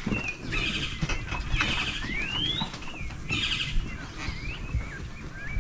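Birds calling: short whistled chirps and glides, with a rising whistle about two seconds in, over steady outdoor background noise.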